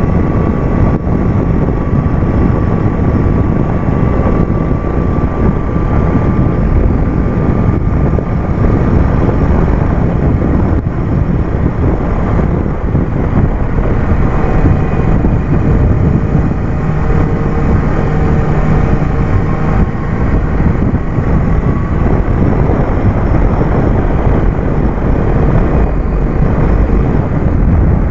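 BMW S1000R sport motorcycle's inline-four engine running at a steady cruise on the move, mixed with a heavy low rush of wind and road noise. The engine tone shifts slightly about halfway through.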